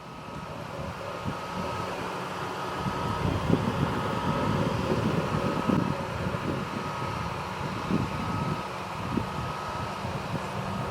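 John Deere 8370R tractor pulling a Krone Big Pack 1290 HDP II large square baler at work: a steady engine and machinery drone that grows louder over the first few seconds. Under it are a short whine that repeats about once a second and irregular low thuds from the baler.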